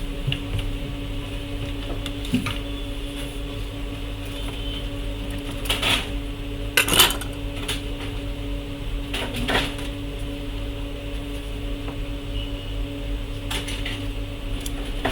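Small metal tools clinking and tapping on a repair bench, about six separate knocks, the loudest around six and seven seconds in, over a steady electrical hum from the bench equipment.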